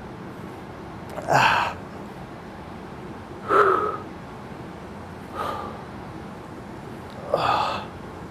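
A man's forceful, partly voiced exhalations with effort, four of them about two seconds apart, one with each crunch as he curls up.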